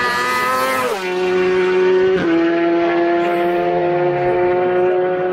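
Racing motorcycle passing at full speed: its engine note drops in pitch as it goes by about a second in, steps down again at a gear change about two seconds in, then holds a steady note as it carries on up the road.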